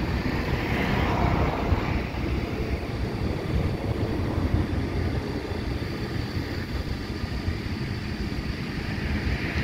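Wind rumbling on the microphone over road traffic, with vehicles swishing past about a second in and again near the end.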